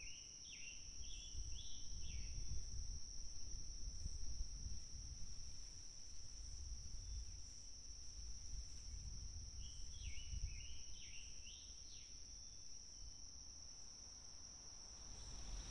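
Woodland ambience: a steady, high insect drone throughout, with a bird singing a short phrase of several quick whistled notes at the start and again about ten seconds in. A low rumble runs underneath.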